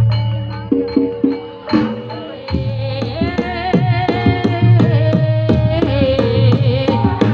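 Live Javanese jaranan ensemble music: rapid hand-drum strokes over a steady low tone. After a short dip, the drumming picks up again about two and a half seconds in, joined by a wavering melody.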